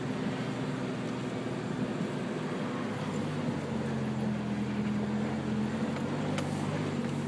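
Toyota 4Runner engine running steadily at low speed on a dirt trail, heard from inside the cab, with tyre and cabin noise underneath. Its note shifts a little about three seconds in.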